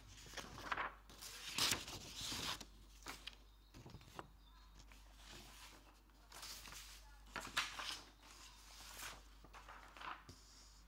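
Faint, irregular rustling and handling noises, a short scratchy burst every second or so.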